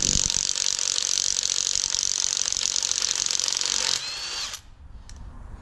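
Milwaukee M18 Fuel 3/8-inch cordless impact wrench hammering on a tight, never-removed lug nut for about four seconds, struggling a little before breaking it loose. It then spins briefly with a rising whine and stops.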